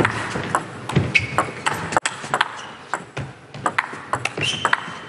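Table tennis rally: the celluloid-type plastic ball clicking sharply off the bats and the table in a quick run of hits.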